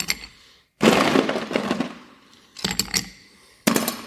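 Ice cubes dropped into a glass, clattering against the glass and each other in three separate bursts, the first about a second in and the last near the end.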